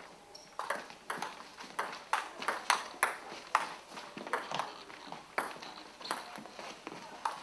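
Table tennis ball struck back and forth in a doubles rally: a fast, irregular run of sharp clicks as the ball hits the bats and bounces on the table top, a few every second.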